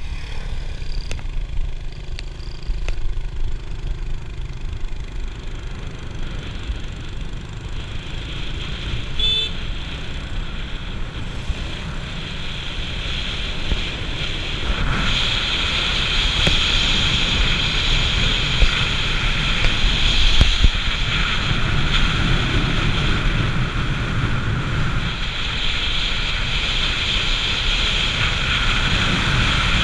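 Motorcycle riding along a road: steady engine rumble with wind and road noise, which grow louder and hissier from about fifteen seconds in. A brief high toot sounds about nine seconds in.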